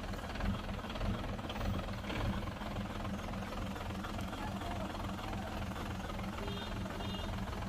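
Heavy diesel engine of a construction machine running steadily with a low, even rumble.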